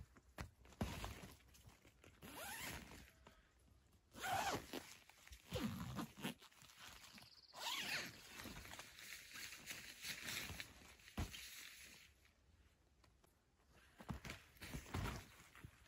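Zipper on the door of a Rocktrail pop-up tent being run open and shut in several separate pulls, with rustling of the tent fabric between them.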